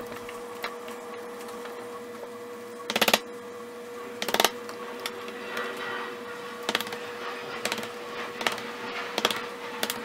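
Light claw-hammer taps on a cut-off nail used as a punch, driving the crimped terminal pins out of a plastic 20-pin ATX power connector held in a vise. Two quick clusters of taps come about three and four and a half seconds in, then single taps about once a second, over a faint steady hum.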